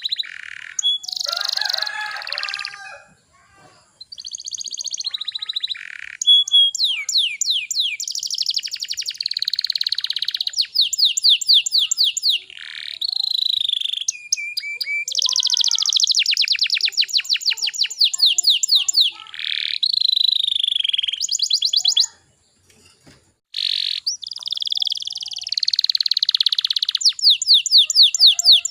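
Canary singing in long, fast trills and rolling phrases of rapidly repeated high notes, broken by short pauses about three seconds in and again about three-quarters of the way through.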